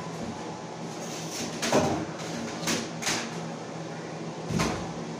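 A few scattered sharp knocks and clicks, irregularly spaced, the loudest a deeper thump about four and a half seconds in, over a steady low hum.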